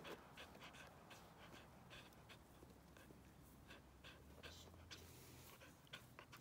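Near silence: faint outdoor background with scattered soft, irregular ticks.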